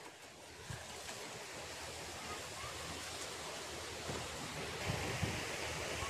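Steady wind noise, a faint hiss that grows a little louder about four seconds in, with a few soft low knocks near the end.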